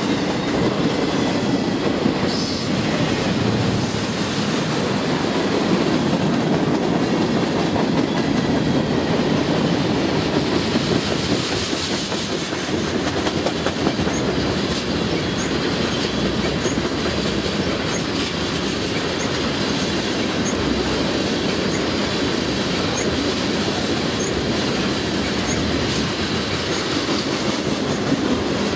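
Freight train cars rolling past at close range: double-stack container cars, then tank cars and covered hoppers, with a steady rumble of steel wheels on rail and a clickety-clack of wheels over rail joints.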